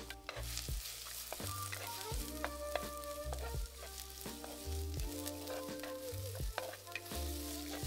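Chopped onion and garlic sizzling in hot sesame oil in a clay pot, stirred with a wooden spatula that scrapes and knocks against the pot again and again. Soft background music with held notes and a bass line plays under it.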